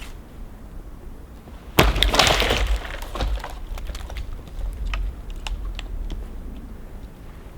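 Firewood cracking as it breaks: one sharp crack about two seconds in, then about a second of crackling, followed by scattered small clicks and taps.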